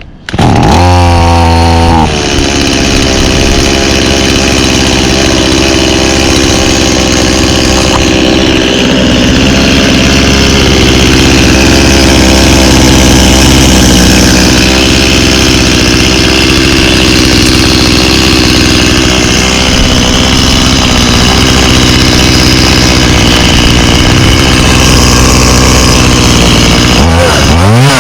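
1991 Stihl 018C two-stroke chainsaw starting on half choke. It runs fast for about two seconds, drops back and runs steadily, then is revved up and down near the end.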